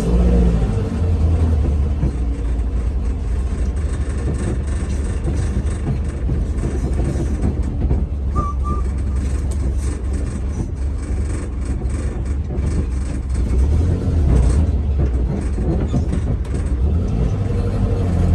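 Volkswagen bus driving, its engine and road noise a steady low rumble in the cab, swelling a little as it pulls away.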